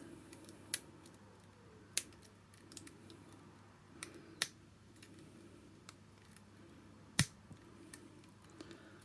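Lock pick and tension wrench working a padlock by single pin picking: about six sharp, irregularly spaced metallic clicks over faint background, the clicking of pins being set.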